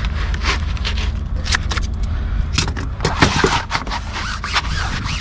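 Stiff sail cloth and tape crackling and rustling as hands press and smooth a patch onto a sail, with a string of short, irregular crinkles over a steady low rumble.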